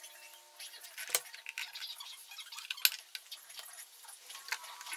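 Small metal and plastic parts of a sewing machine being handled: scattered light clicks and clinks, with two sharper knocks about one and three seconds in.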